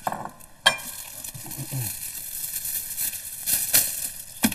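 A plate set down on the worktop with a sharp knock, then rustling and crackling as gloved hands handle raw minced meat, with a few louder crackles near the end.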